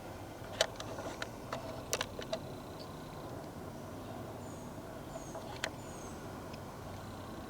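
Footsteps crunching on dry leaves and twigs over the first couple of seconds, then a few faint, high, short descending chirps from a small bird in pairs around the middle, with one more twig snap.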